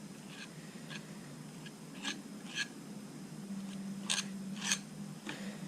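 Palette knife scraping and dabbing acrylic paint on the canvas in a series of short strokes, several in pairs about half a second apart.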